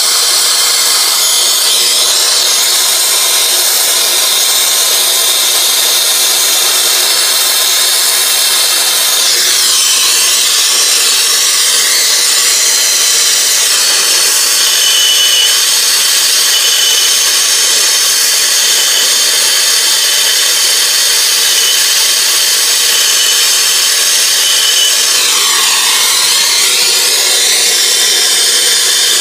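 Brazing torch flame hissing steadily on a copper joint as a silver-solder rod is fed in, silver-soldering a refrigerant line onto an air-conditioner A-coil. Its tone shifts briefly twice, about ten seconds in and near the end.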